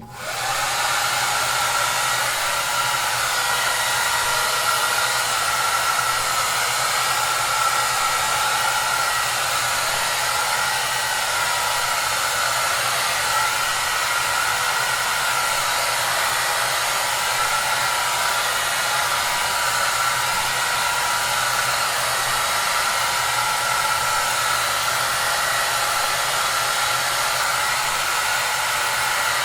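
Hair dryer running steadily: an even rushing blow with a faint motor whine and low hum. It comes in out of a brief silence at the start, reaching full level within half a second.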